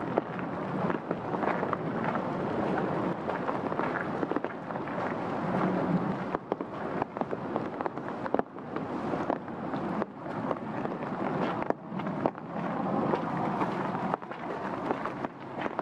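Steady rain falling on trees and foliage: a dense, even hiss, broken by frequent sharp taps.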